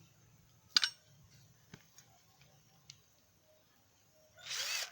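Light clicks and taps of tools being handled. There is one sharp click about a second in and a short rushing burst near the end.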